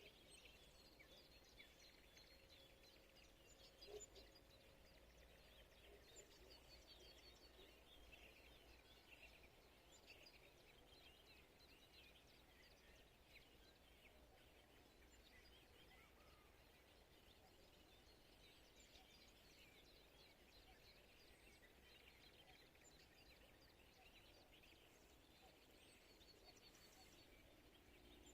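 Faint birdsong from several birds: many short chirps and trills over a low steady background rumble, with a brief louder sound about four seconds in.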